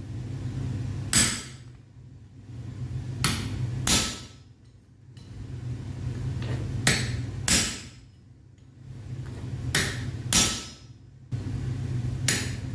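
Blacksmith's hammer striking metal on an anvil, about eight ringing blows, mostly in pairs about half a second apart and a few seconds between pairs. A steady low hum fills the gaps between the blows.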